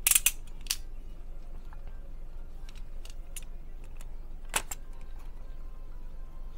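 Sharp clicks and light rattling of a box cutter and small hard objects being handled. A burst of clicks comes at the start and another just after, then scattered faint ticks, and a single sharp click about four and a half seconds in.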